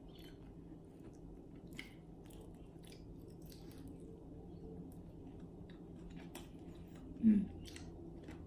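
Close-up chewing and mouth sounds of someone eating rice and fish by hand: scattered short smacks and crunchy clicks over a steady low room hum. Near the end comes a short hum of the voice, falling in pitch.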